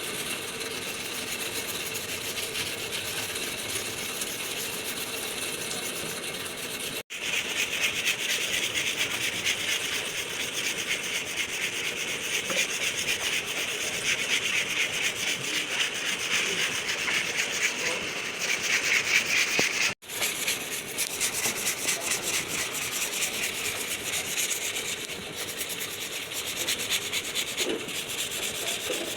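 Sanding on car bodywork: a steady rasping rub that cuts out abruptly twice, where clips are joined.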